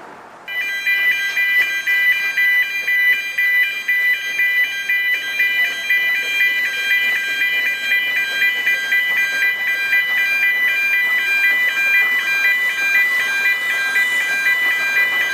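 Road level-crossing warning alarm sounding for an approaching steam train: an electronic alarm of several steady high tones together, pulsing in level, starting abruptly about half a second in.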